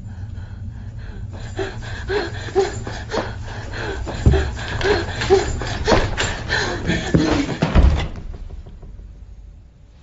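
Rapid knocking and banging, a dense run of sharp knocks with two heavy thumps, that stops suddenly about eight seconds in.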